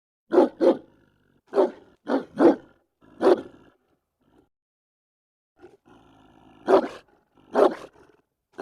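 German Shepherd barking aggressively: six deep barks in quick, uneven succession, a pause of about two seconds, a low growl, then two more barks. It is the sound of an agitated dog guarding its home.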